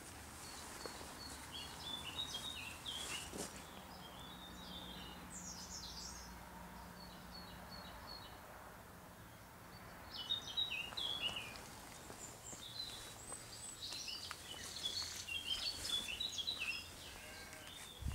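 Songbirds singing: quick phrases of high, warbling notes, several in a row with short pauses between them.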